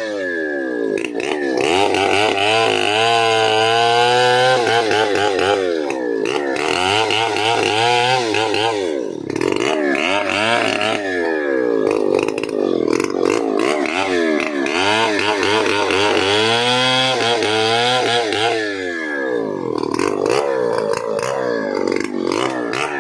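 Stihl 070 two-stroke chainsaw, made around 1980, running and being revved up and down over and over, its pitch rising and falling every couple of seconds.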